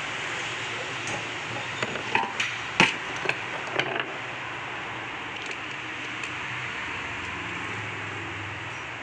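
A quick run of sharp metal clinks and knocks, about seven in two seconds and starting a couple of seconds in, from tools and starter motor parts being handled during reassembly. A steady hiss runs underneath.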